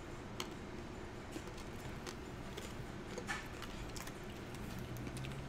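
A few faint, scattered clicks over a low steady room hum.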